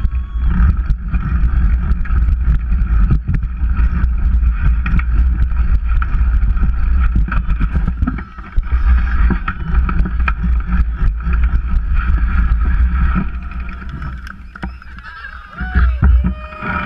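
Mini bike engines running hard at high revs, with heavy low rumble from wind on the microphone; the engine sound drops away about thirteen seconds in.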